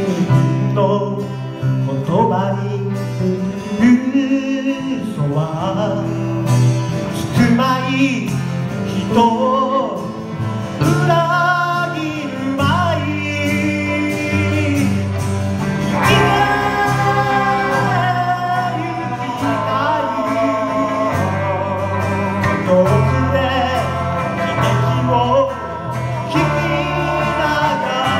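A live rock band playing a song with a sung lead vocal over acoustic guitar, electric bass, grand piano and electric guitar.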